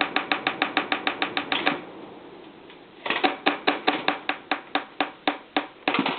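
A box fan blade clicking against the fan's housing as it spins: a Robeson blade that doesn't fit a Lasko 3733. It clicks quickly at about eight a second, stops near two seconds in, then starts again about a second later at a slower, less even rate.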